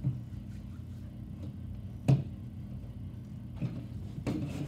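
Hand-sanitizer pump bottle being handled on a table: one sharp click about two seconds in, and a soft hiss starting near the end.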